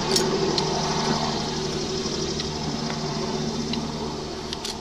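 Steady mechanical hum of a running engine or motor, with a few light clicks over it.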